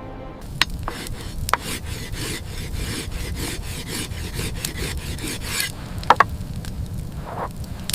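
Rapid rhythmic rasping or scraping strokes, about three to four a second, stopping after about five seconds, followed by a few sharp clicks and one short scrape near the end.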